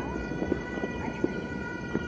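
Distant New Year fireworks and firecrackers popping irregularly over a city, a few sharp cracks among scattered smaller pops. Several steady high tones are held underneath throughout.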